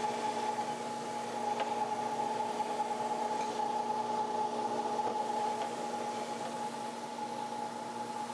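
Magna-Matic MAG-12008 mower blade cleaner running steadily, a constant hum with an even hiss, while it cleans built-up grass off a mower blade.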